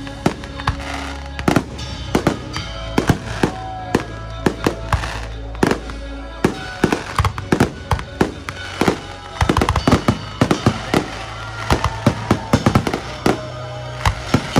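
Fireworks display: aerial shells bursting in a rapid, uneven series of sharp bangs with crackling, thickest in the second half, over music playing underneath.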